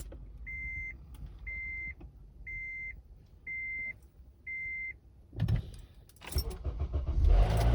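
Five evenly spaced high beeps about a second apart, then the Honda Odyssey RB3's 2.4-litre four-cylinder is cranked and starts with a brief loud rattle as it catches, settling into a steady idle. The rattle at start-up is the abnormal noise that the uploader puts down to the VTC actuator.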